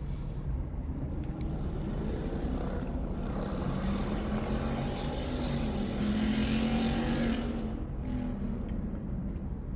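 A vehicle engine passes close by, building up, holding a steady pitch and then fading away, over a constant low hum.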